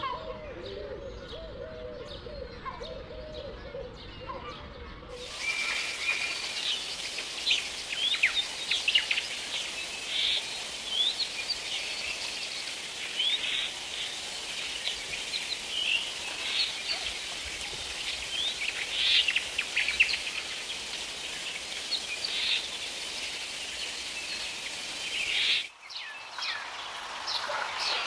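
A low wavering call repeats for the first five seconds. After an abrupt change, a dense chorus of short bird chirps and calls runs over a steady hiss of forest ambience, and the soundscape switches abruptly again near the end.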